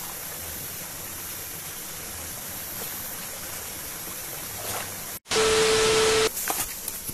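Steady rushing of a forest stream. About five seconds in, an abrupt cut brings in about a second of much louder rushing noise with a steady hum under it, then the quieter stream returns.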